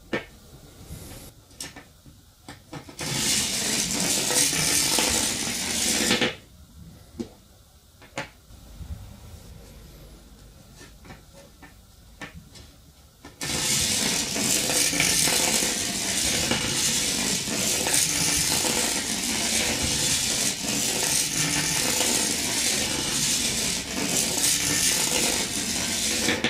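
Long bare copper wire coil being handled and stretched out on a wooden table, its metal turns rattling against each other in two long loud stretches, the second from about halfway in, with scattered clicks and clinks between.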